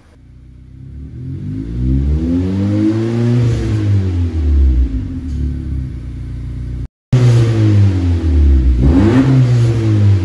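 2018 Honda Accord LX's 1.5-litre turbocharged four-cylinder being revved through a straight-piped exhaust (straight pipe from the resonator back, muffler delete, quad tips), heard at the tailpipes. The engine pitch climbs and falls back in one rev peaking about three seconds in. After a brief dropout a second rev peaks near the end.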